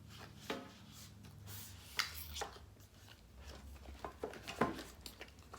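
Scattered small taps, clicks and rubbing as boxes and packaging are handled during an unboxing, with a faint low hum under them.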